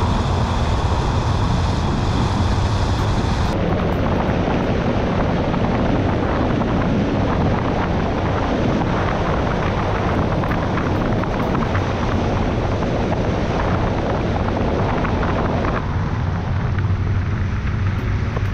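Steady rush of wind buffeting the microphone of a camera mounted on the outside of a moving campervan, mixed with road noise. The sound changes abruptly about three and a half seconds in, and again near the end.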